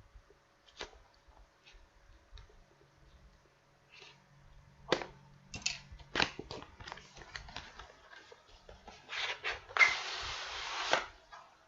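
Cardboard keyboard box being opened by hand: scattered clicks and rustles of the flaps, a few sharper knocks, then a longer scraping slide of cardboard against cardboard near the end as the inner box comes out.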